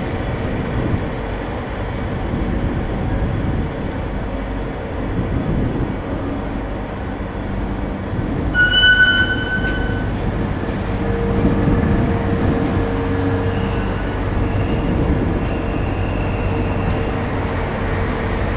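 Freight train's container flat wagons rolling past, a steady rumble of wheels on rail. A brief high squeal comes about halfway through.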